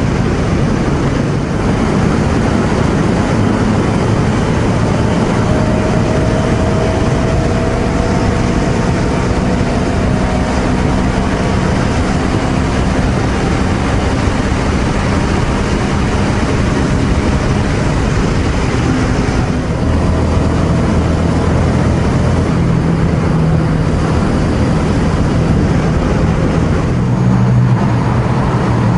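Ducati Scrambler Sixty2's 399 cc L-twin engine running at a steady cruise through a road tunnel, heard from the rider's position under a steady rush of wind and road noise. The engine is new and still being run in.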